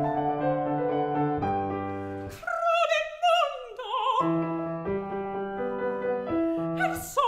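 Baroque opera aria with piano: a piano phrase, then a female operatic voice enters about two and a half seconds in with a wide-vibrato line falling in pitch, the piano takes over again with a few chords, and the voice comes back strongly near the end.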